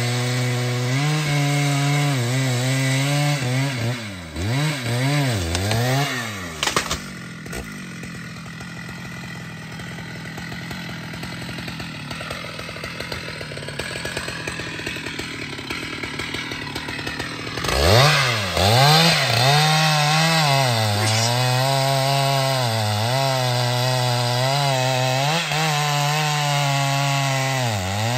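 Large two-stroke chainsaw cutting through a rain tree trunk at full throttle, its pitch dipping again and again as the chain loads up in the wood. About four seconds in it drops back and idles much more quietly for about ten seconds. Near eighteen seconds it revs up sharply and cuts into the felled log, bogging and recovering under load.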